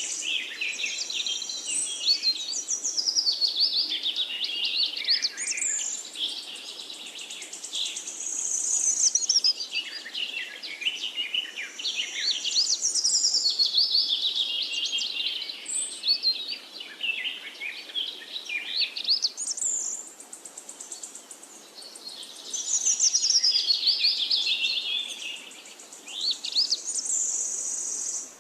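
Several songbirds singing at once, in long runs of quick notes that sweep up and down, mixed with high, thin, buzzy trills.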